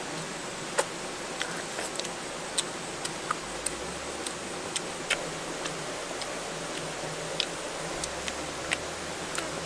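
Eating sounds from grilled stingray being chewed and picked apart by hand: irregular sharp clicks, about one or two a second, over a steady background hiss.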